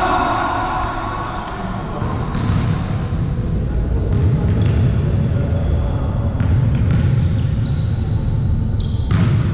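Volleyball play in a sports hall: the ball is struck and thuds repeatedly, with short high squeaks from shoes on the court and a sharp hit near the end.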